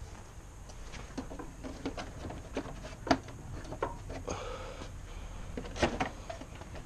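Scattered light clicks and knocks of tools and parts being handled during motorcycle air-filter work, with a sharper click about three seconds in and another near six seconds, and a short scrape between them.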